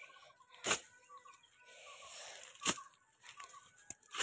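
Footsteps pushing through dry grass and brush, crunching and rustling, with a few sharp snaps of dry twigs and stems, the loudest two about two seconds apart.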